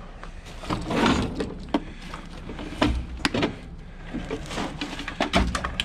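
Handling noise from a round black plastic appliance housing being gripped and worked at against the steel floor of a dumpster: a scraping rustle about a second in, then irregular sharp plastic clicks and knocks, with dull thuds near the middle and near the end.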